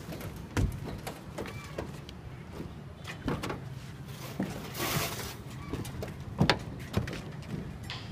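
Scattered knocks and clatter of hand work on a building site, with a brief scraping rush about five seconds in, over a steady low rumble.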